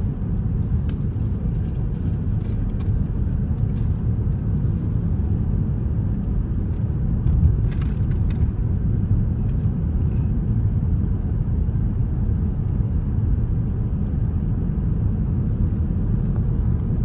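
Steady road and engine rumble of a car cruising, heard from inside the cabin, with a few faint clicks.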